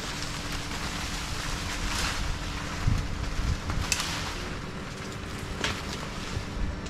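Steady rushing wind noise on the microphone over the low, steady hum of the stick-boom crane's engine running during a pick, with a few short sharp crackles.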